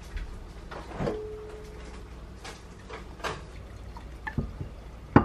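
Kitchen handling noise from a saucepan being lifted off the stove and tipped: a clink about a second in that rings on briefly, a few light taps, and a sharp knock near the end.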